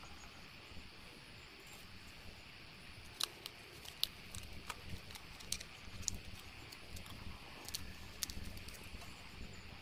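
Faint handling sounds: light clicks and taps of thin PVC sheet and cardboard pieces being held against a small plastic model cab frame, scattered through the second half over a low steady background hum.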